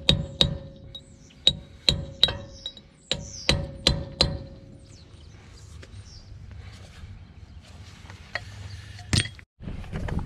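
Hammer tapping a steel dust cap onto the front wheel hub: sharp, ringing metal strikes in small groups, about nine in the first four and a half seconds. A single strike comes near the end.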